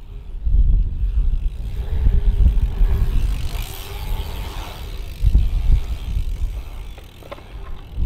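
Wind buffeting the microphone, with dirt-jump bikes rolling over the paved pump track. Tyre noise swells and fades as a rider carves the berm close by, a little past halfway, and a few sharp clicks come near the end.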